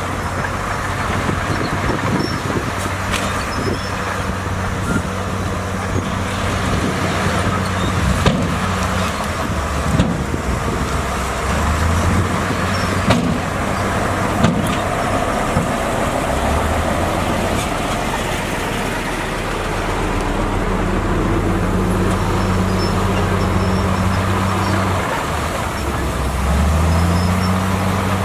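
Diesel engine of heavy earthmoving machinery running steadily under work, its pitch stepping up a few times as it is throttled, with occasional sharp knocks.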